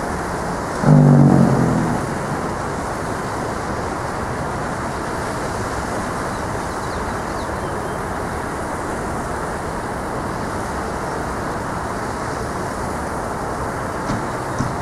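1989 FS Thunderbolt 1000ASC siren running a growl test: its blower and rotor give a steady, low, rushing growl as the horn rotates. A louder low tone rises out of it about a second in and fades within a second.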